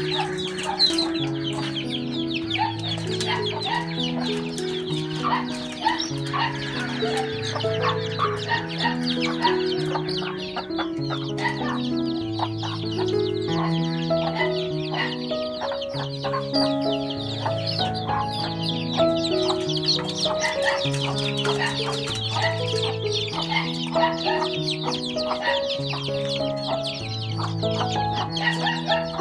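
A flock of young chicks peeping, many short high cheeps overlapping without pause, over background music that plays a slow repeating melody of held notes.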